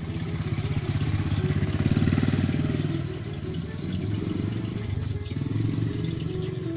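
A low, steady motor hum with water churning and bubbling in the eel tank, swelling around two seconds in.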